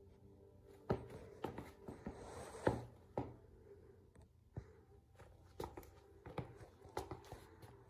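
Rubber-soled basketball sneakers shifting and stepping on a hard floor: a scattered string of faint, soft taps and scuffs as the feet turn, with a longer scuff about two seconds in.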